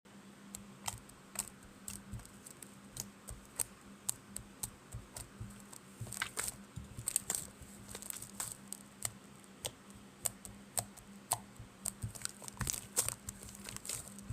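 Jiggly slime being squished and poked by hand, giving irregular small sticky clicks and pops, a few a second.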